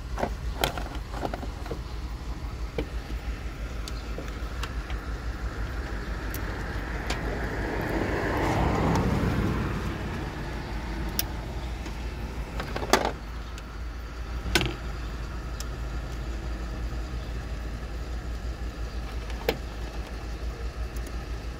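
A vehicle passing by, swelling to a peak about nine seconds in and fading away, over a steady low rumble; a few sharp clicks or knocks.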